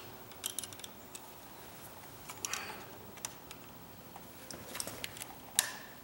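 Small ticks and scrapes of a screwdriver tip working in the push-in wire-release slot on the back of a three-way light switch, then one sharper click about five and a half seconds in as the release gives and the wire comes free.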